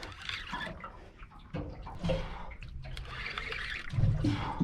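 Water sloshing and lapping against a small boat's hull, in an uneven wash.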